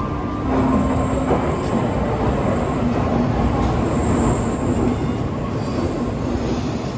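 Tokaido Shinkansen train pulling in alongside the platform, its cars rolling past in a steady rush of wheel and air noise as it slows to stop.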